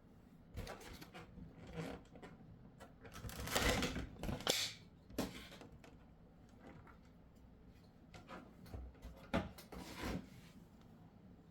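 Pokémon card collection box packaging being handled and opened by hand: scattered rustling and sharp taps of cardboard and plastic, busiest about three to five seconds in, with a few more taps near the end.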